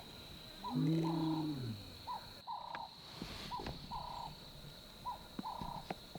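A male lion gives one soft, low contact call about a second in, dropping in pitch at its end; lions use this call to find members of their pride. A bird repeats a short two-part call about every one and a half seconds over a steady high tone.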